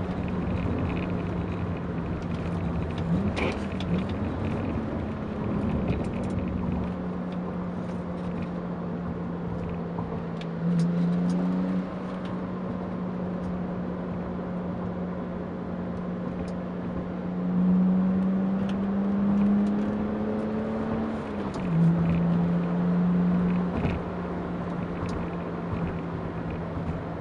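BMW 3 Series engine heard from inside the cabin while driving in a manual gearbox, running with a steady drone whose pitch climbs and then drops abruptly twice, about halfway and again near the end, as at upshifts.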